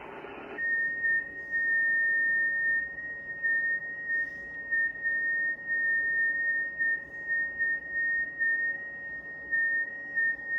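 FT8 digital-mode signal on 6 metres heard through a ham transceiver: a single steady tone near 2 kHz with slight stepwise wobbles in pitch. It starts about half a second in, taking over from a short stretch of receiver hiss.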